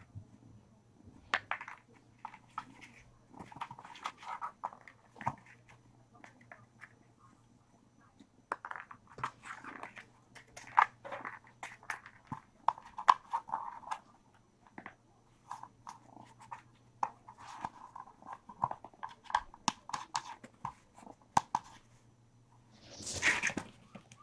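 Kittens moving about and playing close to the microphone: scattered light taps, clicks and scuffs, with a louder brief rustle near the end as a kitten comes right up to it.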